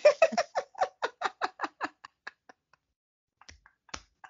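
A woman laughing in a quick run of about five "ha" pulses a second that fade out over two seconds or so, followed by a pause with a couple of faint clicks near the end.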